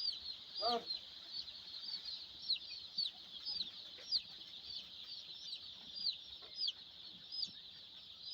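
A brood of five-day-old White Leghorn chicks peeping continuously, a dense chorus of short, high, downward-sliding cheeps several times a second, with one lower call less than a second in.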